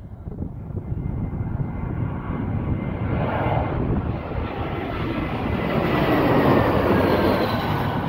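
Twin-engine jet airliner on final approach passing low overhead, its jet engine noise building to a peak as it goes over. A faint high engine whine falls in pitch as it passes.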